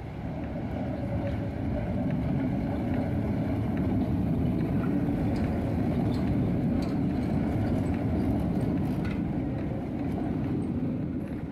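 H0-scale model tram running along its track close by, its motor and wheels making a steady rumbling whir that builds over the first few seconds, with a few light clicks.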